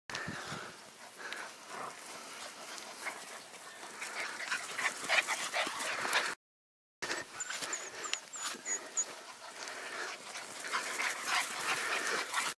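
Goldendoodle puppies whimpering and yipping, many short high cries in quick succession. The sound cuts out completely for about half a second a little past the middle.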